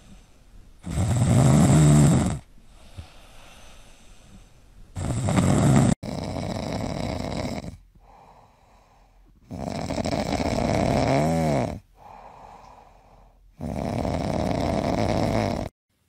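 Sleeping dogs snoring: long, loud snores every three to four seconds, twice from one dog and then, after a cut about six seconds in, three more from a second dog.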